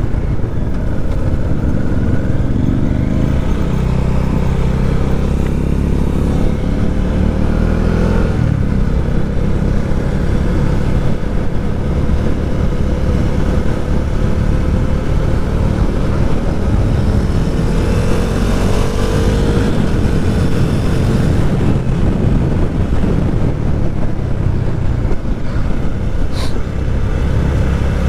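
Motorcycle engine and exhaust under way, its pitch rising as it accelerates, once about four seconds in and again near two-thirds through, between steadier cruising.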